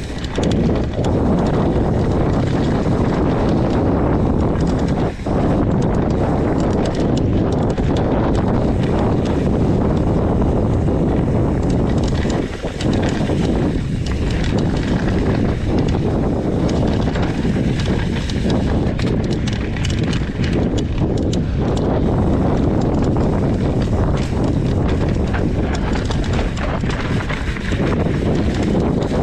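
Mountain bike descending a dry, rocky dirt trail at speed: a constant rumble of tyres on dirt and stones mixed with wind buffeting the microphone, and a steady clatter of knocks and rattles as the bike hits rocks and roots.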